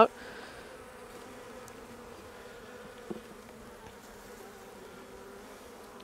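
Honeybees buzzing steadily around an opened hive as frames are inspected, a low even drone. A brief click sounds about halfway through.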